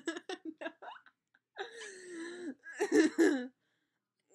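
Girls laughing in short bursts, with a drawn-out whiny wail in the middle.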